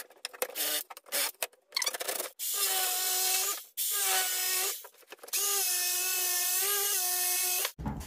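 Cordless drill with a spade bit boring a corner hole through a wooden board in short bursts, then a corded jigsaw running in three stretches, the last and longest about two and a half seconds, cutting out a rectangular window in the wood.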